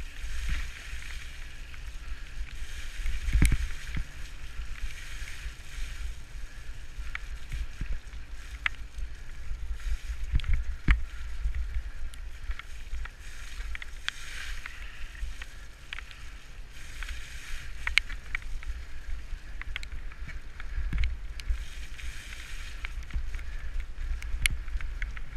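Bicycle tyres rolling through wet mud and puddles on a dirt track, a steady hiss with scattered clicks and knocks from the bike over bumps. Wind buffets the microphone with a low rumble.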